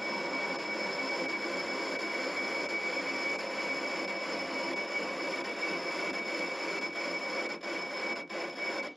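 Metal lathe running steadily, with a steady high whine over its running noise, as it turns a miniature locomotive's tender wheelset and takes a light cut across a wheel tread at a 2-degree cone angle. The cut is to remove a flat spot that a seized axlebox wore into the wheel.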